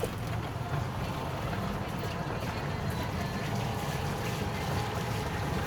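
Steady low rumble of road, traffic and wind noise while riding in a moving NWOW EMC Golf e-bike.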